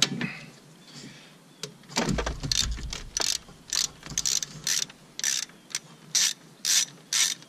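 Ratchet wrench backing out a 12 mm bolt on the clutch slave cylinder. From about two seconds in there is a short burst of pawl clicks on each back-swing, about two a second.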